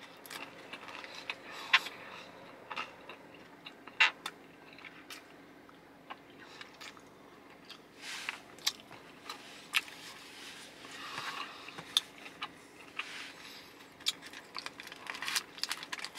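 Close-up biting and chewing of a Hawaiian pizza wrap: irregular crunches of the crust and wet mouth clicks, the sharpest crunches about two and four seconds in.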